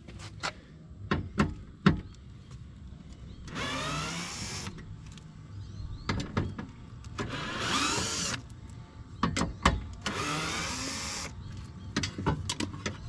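A cordless power driver runs in three short bursts of about a second each, backing out fasteners to free a piece inside a car door. Short clicks and knocks of tools and parts come between the bursts.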